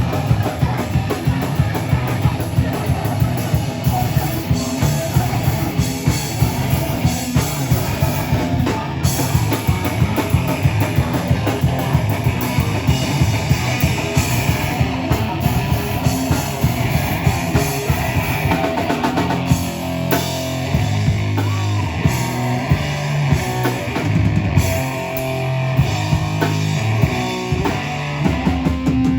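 Live band playing loud, heavy rock with distorted guitars, bass and fast drumming. About two-thirds of the way in, the drumming thins and the music moves to slower, held low notes.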